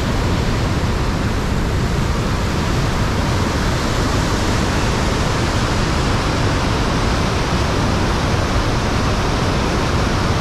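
Ohiopyle Main Falls on the Youghiogheny River: heavy whitewater pouring over the falls and through the rapids, a loud, steady rush of water that doesn't let up.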